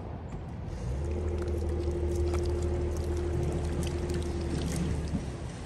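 Water trickling and dripping, with a steady motor hum that comes in about a second in and fades near the end.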